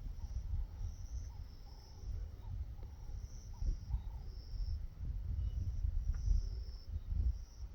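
Insects chirping: short high-pitched chirps repeating about once a second over a low, irregular rumble.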